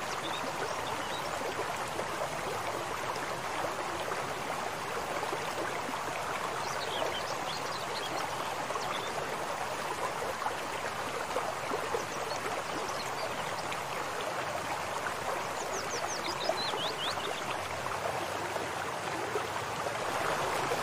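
Steady rushing of water flowing along a small concrete irrigation channel.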